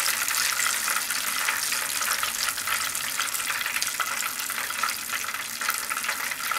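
Hot oil from deep-frying breaded pork cutlets sizzling and crackling steadily, a dense fine spatter of pops.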